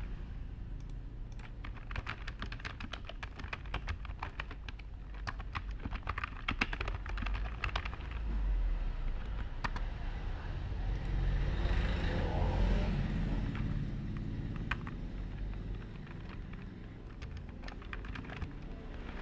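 Computer keyboard typing: quick runs of key clicks, densest in the first half, then scattered keystrokes. A steady low background rumble runs underneath and swells louder about two-thirds of the way through.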